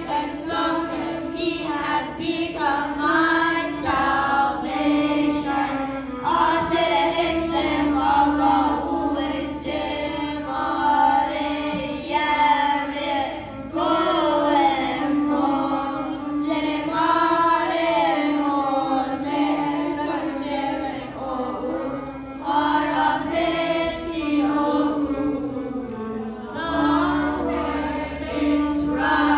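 Children's choir singing a hymn in unison over a sustained low accompaniment note.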